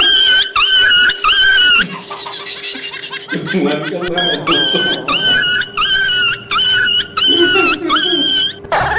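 A high-pitched, sped-up laughing sound effect: a short squeal rising at its end, repeated about every two-thirds of a second, with a break of about a second about two seconds in.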